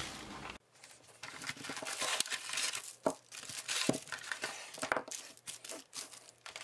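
Clear plastic packaging bags and a plastic tray crinkling and rustling as they are handled, in many short irregular crackles.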